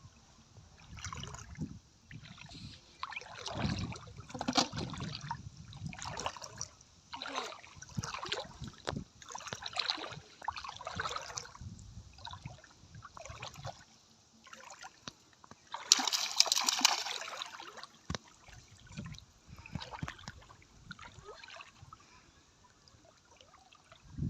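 Water splashing and sloshing in irregular bursts, with one louder splash about two-thirds of the way through.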